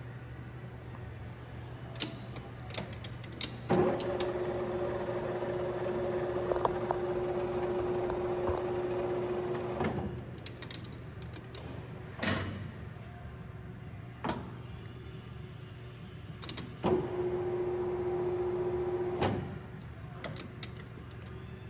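South Bend 400 lathe running under power, with a steady hum throughout. A geared whine comes in for about six seconds and again for about two seconds later on, each time switched on and off with a sharp click, and a few other sharp clicks fall in between.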